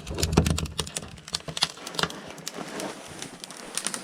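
Footsteps crunching on cold, packed snow: a quick, irregular run of sharp crunches and clicks.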